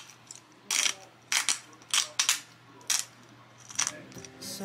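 A pepper mill grinding black pepper onto egg toast: a run of short gritty grinding bursts, about seven, spaced unevenly.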